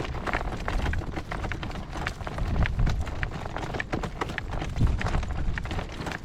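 Hoofbeats of a driven horse moving over dry ground, irregular strikes throughout, with strong wind buffeting the microphone.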